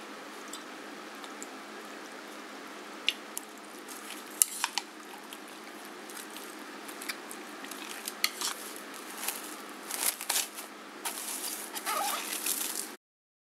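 Chopsticks mixing raw chicken pieces in marinade in a ceramic bowl: scattered clicks of the chopsticks against the bowl, growing busier and more scraping in the second half, over a steady hiss. The sound cuts off abruptly near the end.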